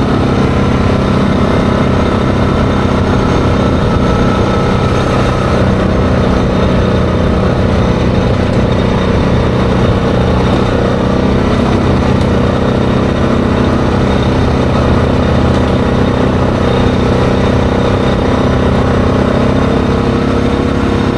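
ATV engine running steadily while riding along at an even speed.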